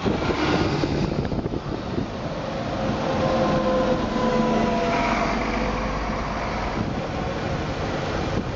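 City buses driving past close by: diesel engine rumble and tyre noise, with a double-decker passing near the middle and a faint whine as it goes by.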